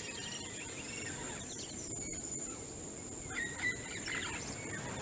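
Birds chirping and twittering in short, scattered calls over a steady high-pitched insect drone and a low background hiss.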